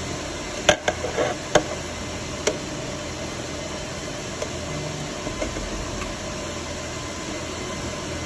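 Steady hiss of running machinery, with a handful of sharp knocks and clicks in the first two and a half seconds.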